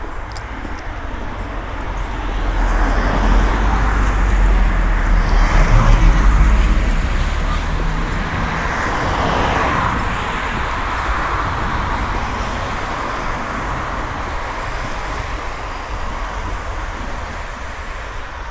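A car passing on a wet street: a low engine rumble builds and fades over about five seconds, while the hiss of tyres on the wet road peaks near the middle and then slowly tails off.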